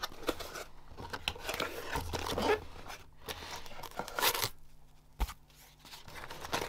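Cardboard packaging being opened and handled by hand: irregular scrapes, crinkles and light knocks of box flaps, a cardboard insert and foam padding, with a quieter spell a little past the middle.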